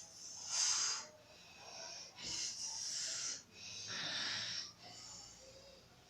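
A woman snoring in her sleep: a run of wheezy, hissing breaths about a second long each, the loudest near the start and fading toward the end.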